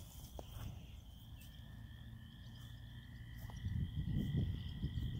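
Steady high-pitched chorus of calling frogs in the background. A low rumbling noise swells up about three-quarters of the way through and is the loudest sound.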